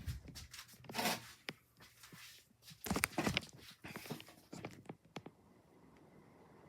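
Irregular clicks, scrapes and rustles, like things being handled, with the loudest bursts about one and three seconds in. They die away after about five seconds, leaving only a faint steady background.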